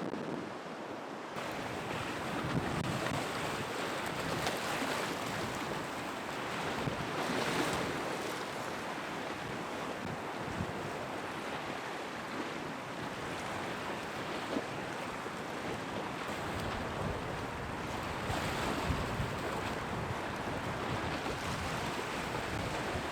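Storm-driven sea waves surging and breaking, several louder surges in turn, with gale-force wind buffeting the microphone.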